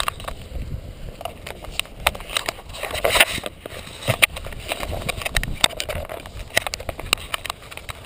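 Irregular clicks and knocks from a handheld camera being handled, over wind rumbling on the microphone.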